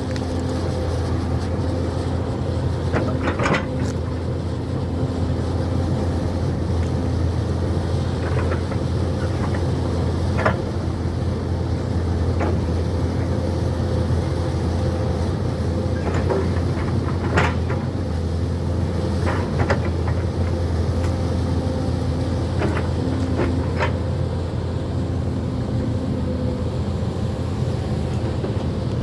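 Hyundai crawler excavator's diesel engine running steadily, with a dozen or so sharp knocks scattered through it.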